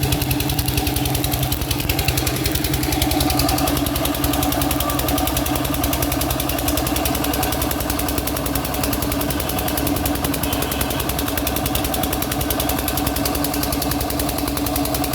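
Engine of a 7.5 kVA generator set running steadily at constant speed, with an even rapid firing beat.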